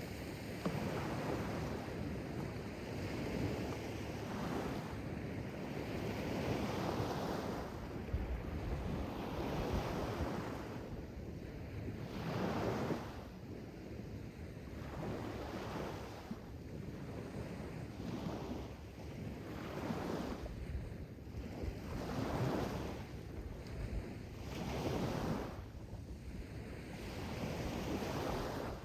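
Sea waves washing in and breaking, the surf swelling and ebbing every few seconds, with wind noise on the microphone.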